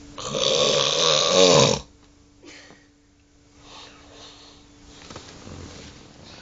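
A person snoring: one loud snore lasting about a second and a half, its pitch rising near the end, then a few much fainter sounds.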